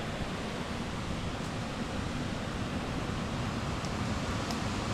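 Steady rushing of creek water, with a couple of faint ticks.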